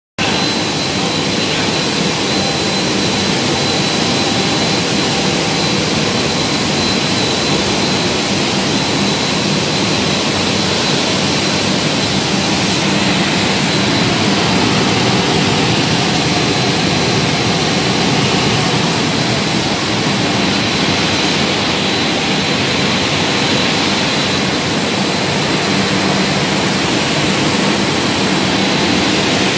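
Artificial rice extrusion production line running: a steady, loud machine noise with a constant high whine over it.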